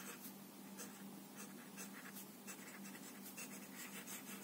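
Nib of a Staedtler Initium Metallum fountain pen scratching faintly across paper in quick, irregular cursive strokes. The pen is filled with an ink the writer finds too dry for it, so it skips now and then.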